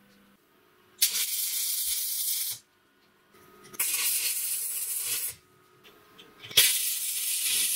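Electric arc welder laying three short welds on clamped steel flat bar, each a crackling hiss of about a second and a half that starts sharply and stops when the arc is broken.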